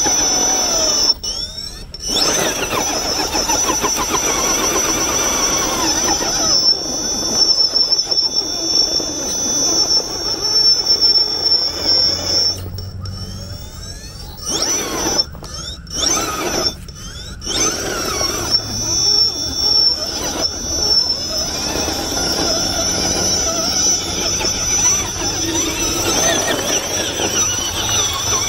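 RC rock crawler's electric motor and gearbox whining as it crawls up rock, the pitch rising and falling with the throttle, over a steady high-pitched whine. The sound cuts out briefly a few times in the middle.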